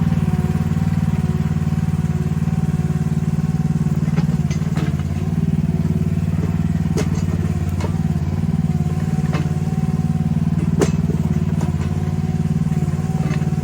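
Mini excavator engine running steadily under work, with a steady whine above it and several sharp knocks from the machine's digging gear in the middle stretch.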